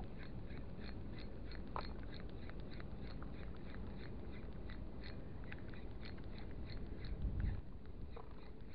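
Small 1000-size spinning reel being cranked to retrieve a lure, ticking evenly about four to five times a second, over a steady low rumble of wind on the microphone. A brief louder low thump about seven seconds in.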